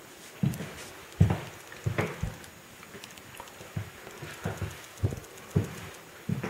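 Footsteps of someone walking across a hard floor: a string of dull thuds, some spaced about half a second apart, some closer together.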